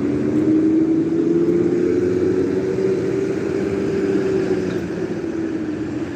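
A vehicle passing: its engine or motor tone rises slightly and then sinks back over a few seconds, over steady traffic noise, growing louder about a second in and easing off near the end.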